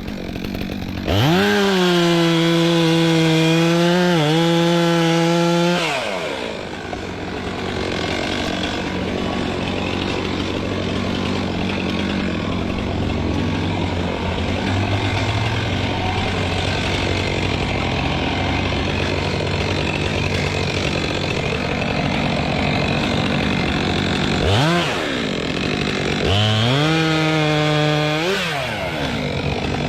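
Chainsaw revved to full throttle and held for about five seconds, then running at a lower, rougher note for a long stretch. Near the end the throttle is blipped once, then it is revved high again for about two seconds and let off.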